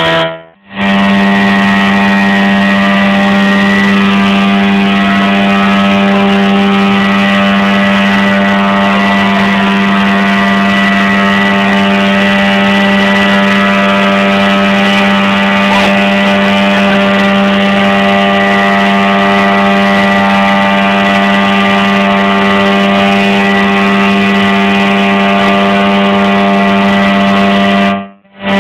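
Small engine running loud and steady at a constant high speed, its pitch unchanging, with the sound cutting out briefly about half a second in and again just before the end.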